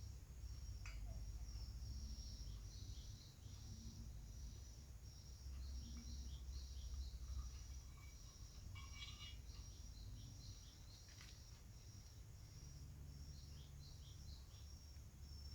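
Faint outdoor ambience: high insect and bird chirps repeating several times a second over a low rumble, with a few light clicks.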